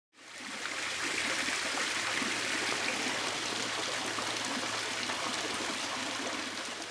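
Water spilling and trickling steadily down a small stone garden fountain, fading in over the first half second.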